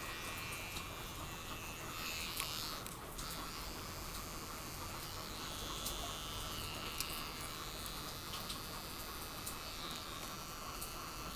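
Steady hiss of rain with a few light, sharp clicks scattered through it and a faint intermittent buzz.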